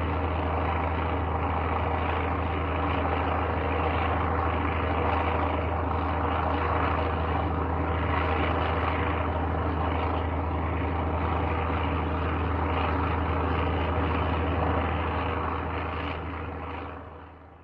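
Airplane in flight: a steady engine drone with a strong low hum and several steady tones above it, fading out over the last couple of seconds.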